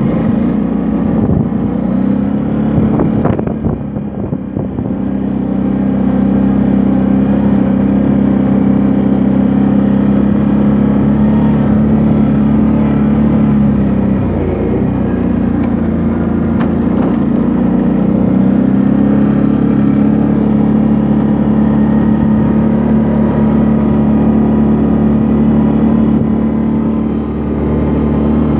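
Snowmobile engine running steadily under way. It eases off briefly about three seconds in, drops again around the middle, then picks back up.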